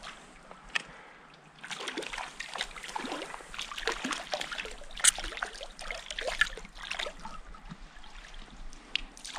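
A hooked trout thrashing and splashing at the stream's surface: a run of irregular small splashes starting about a second and a half in. Near the end the splashing comes from the fish being drawn to a landing net held in the water.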